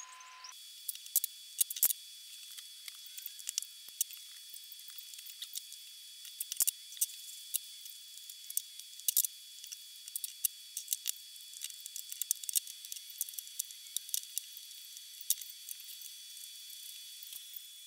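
Irregular sharp clicks and rustling as upholstery fabric and batting are handled and cut around a foam seat pad, a few clicks much louder than the rest, over a faint steady hiss.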